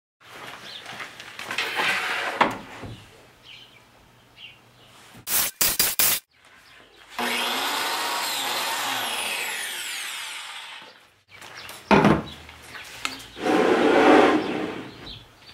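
Handheld biscuit (plate) joiner cutting slots into the edge of 3/4-inch melamine board: several short runs of the motor and blade, with sharp clicks and knocks between them. The longest run lasts about four seconds and its pitch falls as the blade winds down.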